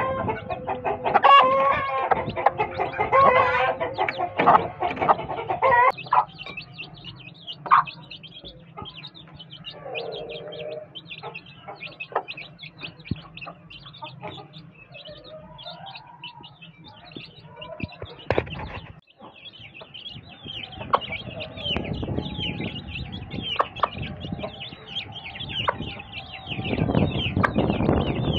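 Aseel hen clucking with her chicks peeping around her as they feed. After the first few seconds the chicks' rapid, high peeping takes over, and near the end there is a burst of rustling and flapping.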